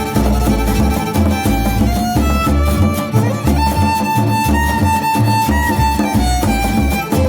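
Instrumental break in a mariachi-style Mexican song: violins carry the melody over a steady, bouncing bass beat, with no singing.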